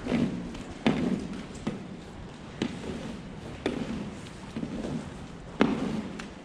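A long-handled barn scraper is worked over the bedding of cow stalls in repeated strokes. Each stroke gives a sharp knock followed by a short scrape, roughly once a second.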